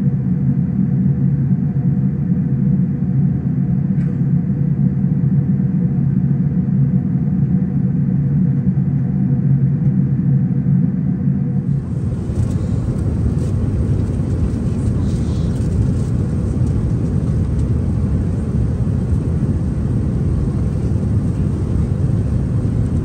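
Steady cabin noise of an Airbus A380 in cruise: a low rumble of engines and airflow with a faint steady hum. About halfway through it changes abruptly to a broader, hissier cabin noise.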